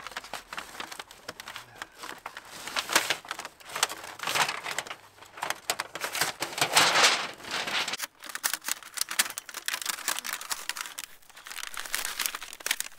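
A thin stainless steel sheet being rolled by hand into a stovepipe on a tarp: the metal crinkles and crackles irregularly as it flexes, loudest about seven seconds in.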